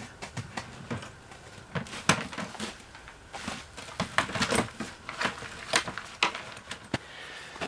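Irregular knocks, clicks and rustles of gear being packed: a plastic storage tote and soft bags handled and loaded into a plastic Jet Sled on the snow.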